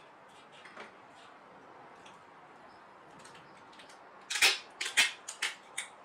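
Faint light ticks, then a quick run of about six sharp clicks and snaps in under two seconds, starting about four seconds in.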